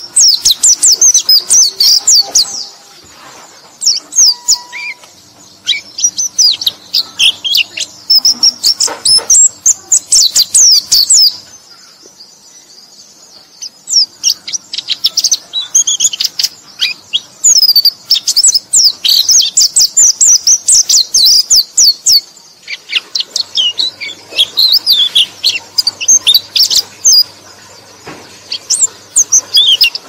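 Pleci (white-eye) song: rapid, high-pitched twittering made of quick chirps strung into long runs. It breaks off for a couple of seconds about 12 seconds in, and briefly again about 22 seconds in.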